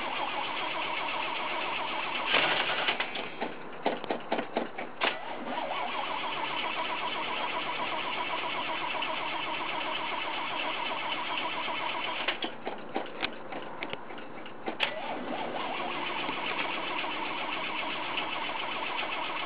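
Car exhaust at the tailpipe of an idling engine, steady and even. It is broken twice by a run of short sharp bursts, a couple of seconds in and again about twelve seconds in.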